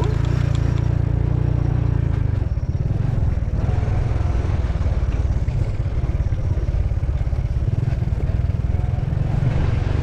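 Motorcycle engine running steadily while riding along a rough dirt track, heard from on the bike, with a steady low rumble.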